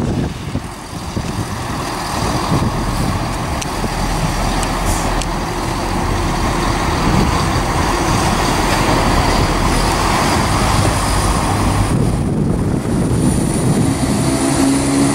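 CrossCountry Class 170 Turbostar diesel multiple unit running slowly through the station: a steady engine and wheel rumble that grows a little louder, with a thin high whine joining about ten seconds in.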